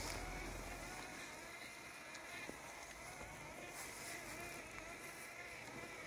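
Landxcape LX790 robotic lawn mower running as it mows wet weeds: a faint electric-motor whine that wavers slightly in pitch.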